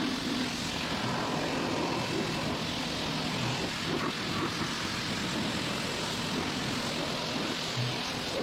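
Pressure washer running and spraying: a steady rushing hiss over a motor hum.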